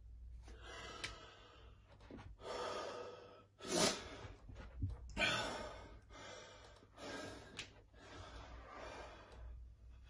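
A man breathing hard through a series of forceful breaths while flexing through bodybuilding poses, about eight breaths, the loudest about four seconds in.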